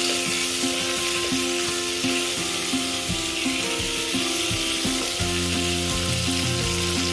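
Thuthuvalai (Solanum trilobatum) leaves sizzling in hot oil in a pan as they are sautéed.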